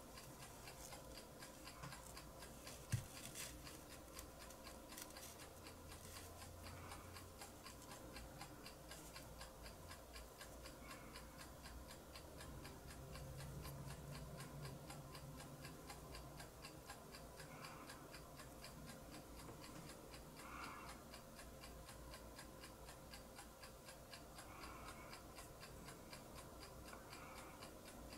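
Near silence with a faint, steady, regular ticking in the background and one small sharp click about three seconds in.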